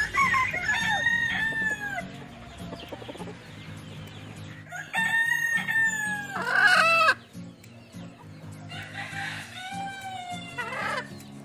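Roosters crowing: three long crows one after another, each dropping in pitch at its end.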